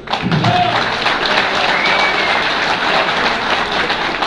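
Audience applauding: dense, steady clapping from a crowd that breaks out abruptly at the start and keeps on without a break.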